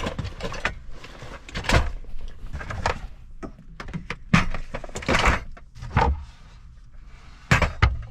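A string of irregular knocks and thuds, about a dozen spread unevenly, with quieter clattering between them.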